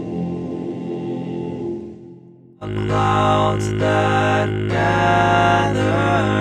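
Multitrack a cappella bass singing: several layered voices hold a deep bass note sung as a subharmonic, labelled F1. The first choral chord fades out about 2 s in. After a short gap, a new group of voices comes in suddenly, with a steady low drone under moving upper parts.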